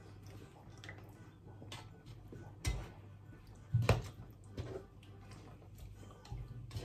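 Slotted spatula knocking and scraping against a frying pan while chicken pieces are stirred and turned in a wet sauce: a few sharp knocks, the loudest about four seconds in, with faint ticks between, over a steady low hum.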